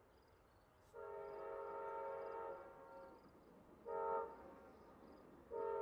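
Amtrak GE Genesis locomotive's multi-chime air horn: a long blast about a second in, a short blast near four seconds, and another long blast starting near the end. This is the grade-crossing warning signal of an approaching train.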